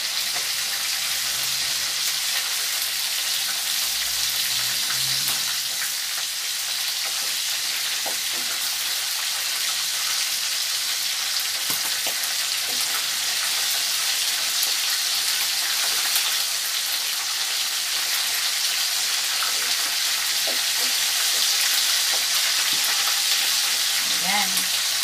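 Marinated chicken pieces sizzling steadily in hot oil in a frying pan, with a few light clicks along the way.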